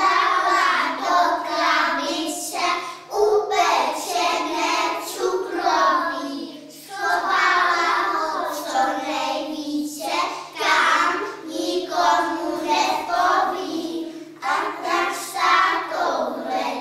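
A group of young children singing a song together in phrases a few seconds long.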